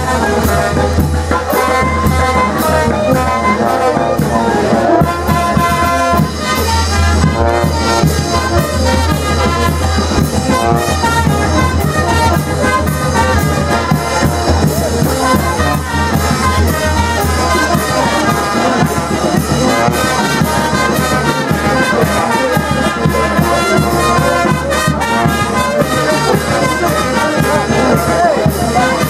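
Festival brass band playing dance music: trumpets and trombones over a sousaphone, with a steady bass-drum beat.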